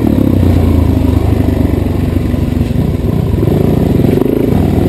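Dirt bike engine running under throttle while being ridden along a woodland singletrack, the revs rising and falling.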